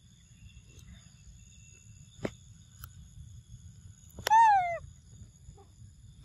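A monkey gives a single loud, high call just after four seconds in, falling in pitch over about half a second. Insects drone steadily throughout, and there is a sharp click about two seconds in.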